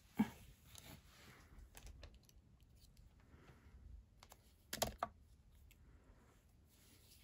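Light scattered clicks and taps of hands handling small die-cut paper pieces and tweezers on a craft mat, with a sharper click just after the start and a quick cluster of clicks about five seconds in.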